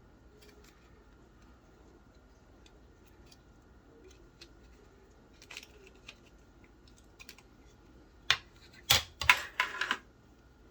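Scattered light clicks of plastic parts being handled as a handheld cellular phone is taken apart, then a cluster of louder clicks and scraping from about eight seconds in. A faint steady high tone runs underneath.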